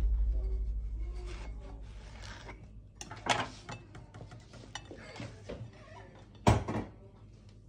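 Kitchen knife cutting through dragon fruit on a wooden cutting board: soft rubbing and slicing with small clicks, a low thud at the start, a sharp knock about three seconds in, and the loudest knock near the end.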